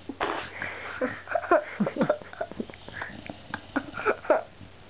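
Mastiff puppy's noisy breathing: a quick, irregular run of short snorts and snuffles, some with a pitch that slides down.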